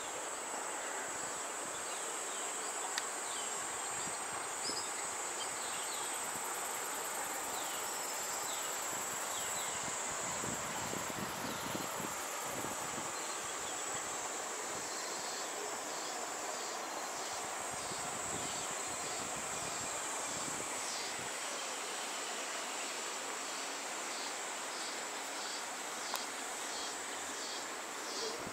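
Insects calling at dusk: a steady high-pitched trill with rows of short repeated chirps over it.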